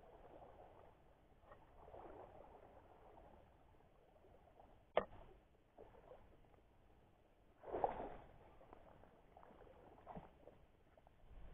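Faint sloshing of shallow sea water around a person wading. There is a sharp click about five seconds in and a louder noisy burst just before eight seconds.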